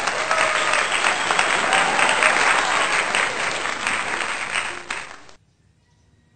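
Applause from many hands clapping, which cuts off abruptly about five seconds in.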